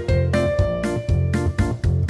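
Background music: a bright keyboard melody of short notes over a steady bass beat.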